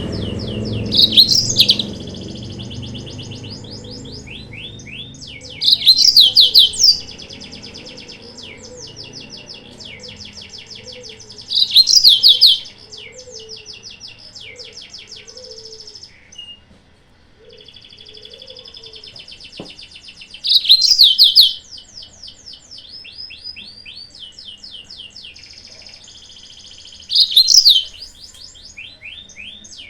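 Yellow-fronted canary song: a steady run of fast, high chattering trills, broken by five louder ringing phrases about every five or six seconds. This is a lure and training recording meant to provoke other birds of its kind into singing.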